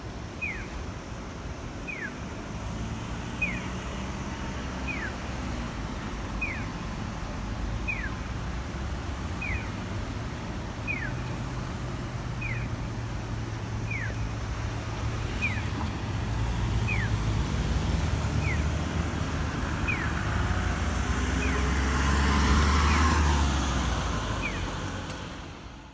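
Koito 1015 audible pedestrian crossing signal sounding a short falling electronic chirp about every second and a half, in an unusual tone variant for this sounder. A road vehicle passes late on and is the loudest sound for a few seconds.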